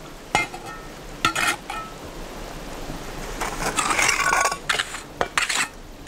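Steel mason's trowel working wet cement mortar: a few sharp clinks in the first second and a half, then a longer stretch of scraping and stirring about halfway through.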